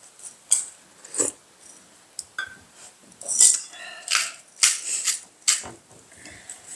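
Handheld pepper grinder being twisted, its grinding mechanism crunching peppercorns in short, gritty clicks that come in quick runs through the middle and second half.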